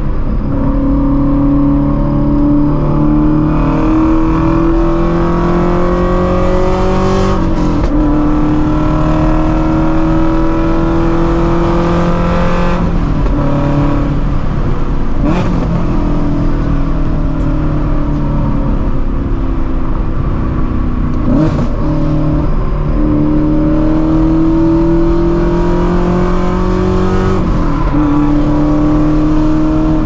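Straight-piped 2016 Shelby GT350's 5.2-litre flat-plane-crank V8 with long-tube headers, heard from a microphone at the exhaust, running under moderate acceleration through the gears. The pitch climbs slowly and dips briefly about five times as gears change.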